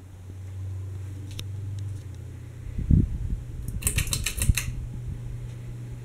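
Harbor Breeze Armitage hugger ceiling fan running with a steady low motor hum. About three seconds in there are a few heavy low thumps, then a quick run of sharp clicks just under a second long.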